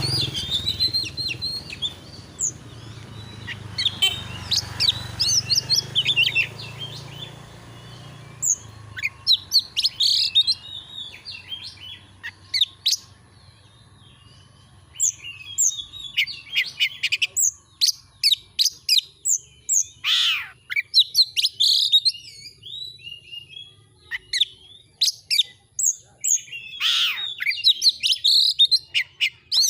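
Oriental magpie-robin (kacer) singing a long, fast, varied song of whistles, chirps and trills, with a few sharp downward-sweeping notes. A low steady rumble sits underneath for the first several seconds.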